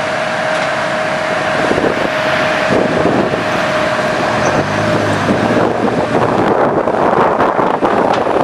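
Komatsu PC200 hydraulic excavator's diesel engine running as the arm and bucket work, with a steady high whine that stops about five seconds in. After that the noise gets louder and rougher, with wind buffeting the microphone.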